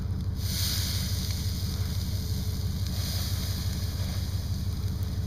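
A small boat burning in a large open fire: a steady low rumble, with a hissing rush that swells about half a second in and eases off after a few seconds.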